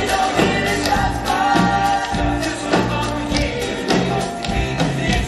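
Live band of guitars and drums with a steady beat, accompanying a male ensemble singing together.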